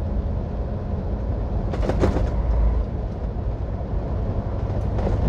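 Steady low engine rumble and road noise inside a moving truck's cab, with tyres running on wet asphalt and a brief clatter about two seconds in.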